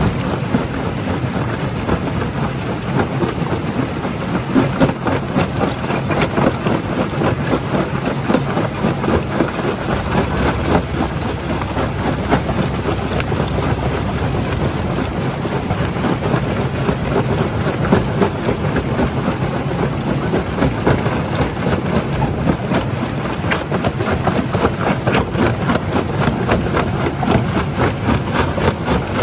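Primary jaw crusher crushing rock: a continuous heavy rumble of machinery, thick with the cracking and knocking of stones breaking and clattering through it, with no let-up.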